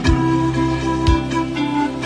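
Instrumental background music: held notes over a deep beat that falls about once a second.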